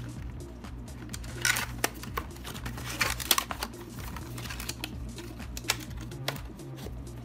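Small cardboard product boxes being handled and opened: scattered light clicks, taps and short rustles of paperboard and packaging, over a steady low hum.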